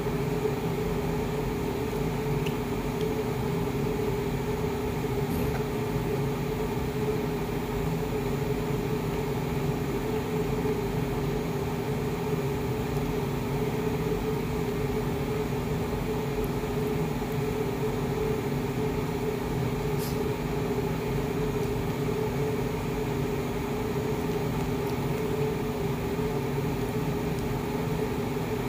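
Steady, unchanging hum of a running appliance, with one faint click about twenty seconds in.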